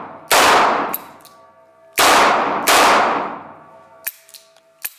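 Korth Sky Marshal 9 mm Luger revolver firing three shots, one then a quick pair, each echoing in a vaulted stone cellar. Near the end come a few light sharp clicks of the hammer falling without a shot: misfires.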